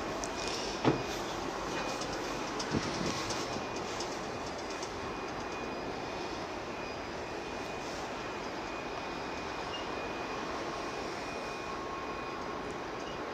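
Steady rushing background noise on a cruise ship's open deck, with a faint high steady whine. Two brief knocks come in the first three seconds.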